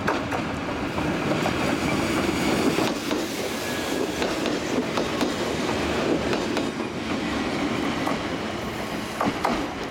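Toyama Chiho Railway series 10030 electric train, a former Keihan 3000 series set, passing close by as it departs the station: a steady rumble of wheels on rail with a few sharp clacks as the bogies cross rail joints.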